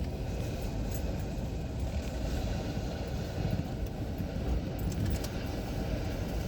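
Strong storm wind gusting, rumbling heavily on the microphone with a steady noisy hiss above it.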